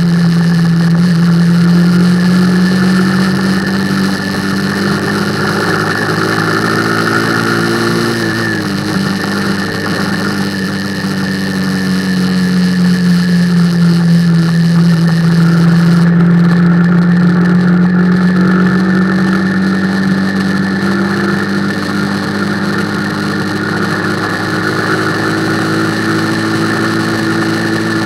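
Motorcycle engine running steadily at cruising speed, heard from the rider's seat with road and wind noise. Its pitch dips about eight seconds in, then slowly rises again.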